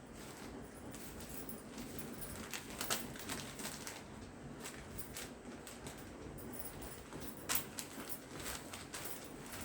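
Intermittent rustles and light clicks of a saree and its packaging being handled, with two sharper clicks about three seconds in and near the end.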